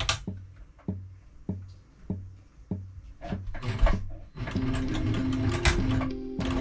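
Sailrite Ultrafeed LSZ-1 Premium sewing machine stitching slowly, a knock with each stitch about every 0.6 s over a low motor hum. About four seconds in, background music comes in and takes over.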